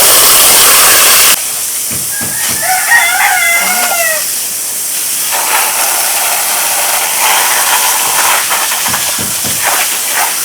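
A rooster crows once, about two and a half seconds in, over a steady loud hiss. The hiss drops suddenly in level about a second and a half in.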